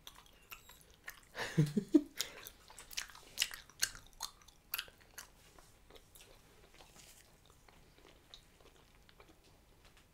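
Hubba Bubba bubble gum being chewed with the mouth open: quick wet smacks and sticky clicks, thick for the first few seconds and thinning out after about five seconds. A brief low-pitched mouth sound comes about a second and a half in.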